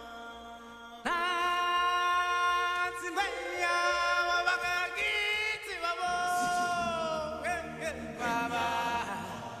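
Background music: a sung vocal chant with voices holding long notes, getting louder about a second in.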